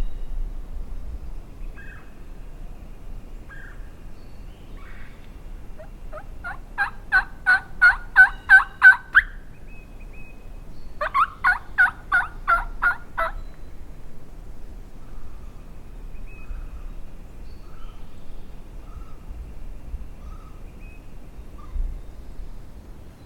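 Turkey yelping: two series of about eight loud, evenly spaced notes, a few seconds apart, with faint scattered bird calls in between.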